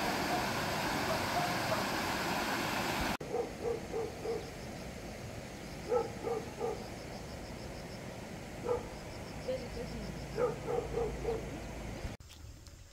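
A loud, even rushing noise that cuts off about three seconds in. Then an animal's short calls come in runs of three or four, several times over, with faint high ticking behind them.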